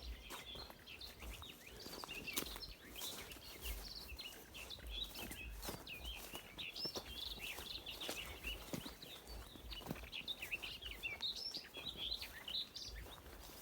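Songbirds chirping and twittering in a dense run of short, quick calls, over the scattered crunch of footsteps on a forest floor and a low rumble of wind on the microphone.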